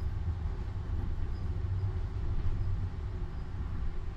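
Steady low rumble of a tram running along its rails, heard from on board.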